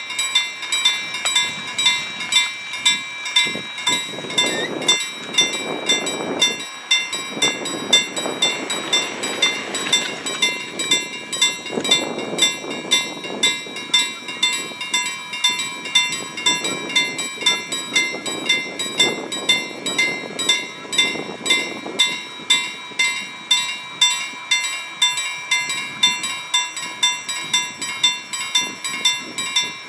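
Railway level crossing warning bell ringing in a steady, evenly spaced rhythm, with a low rumble that swells and fades at times underneath.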